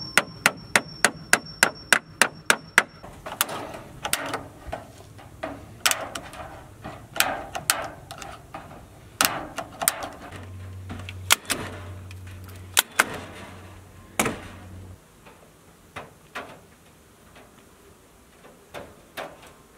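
A hammer driving a nail into pallet wood: a quick even run of blows, about three a second, for the first three seconds. Then scattered sharp clicks and rattling as hardware cloth (wire mesh) is cut with snips and handled, thinning out over the last few seconds.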